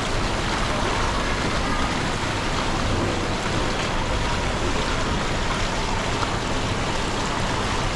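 Steady running and bubbling water at a fish pond, as from its aerator.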